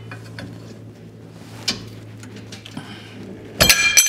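A steel pry bar working against a car's rear subframe mount gives a few light clicks and taps. Near the end comes a loud, ringing metal clatter of hand tools being handled. A steady low hum runs underneath.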